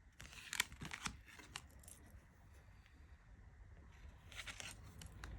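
Tarot cards being handled and flipped through by hand: quick papery slides and flicks of card against card, in a burst near the start and another shorter one about four seconds in.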